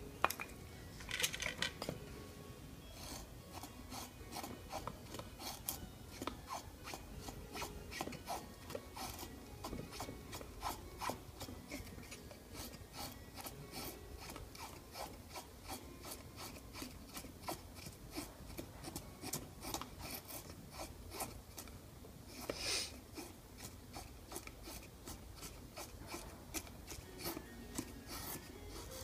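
Knife blade shaving thin curls down a wooden stick to make a feather stick: a steady run of short scraping strokes, about two to three a second, with one louder stroke about three-quarters of the way through.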